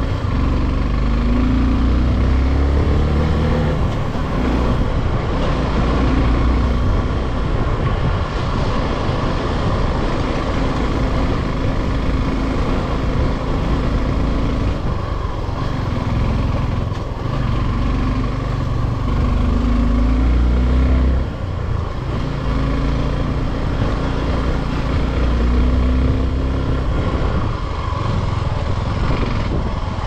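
Motorcycle engine running while riding up a steep mountain climb, its note rising and falling, over a heavy low rumble.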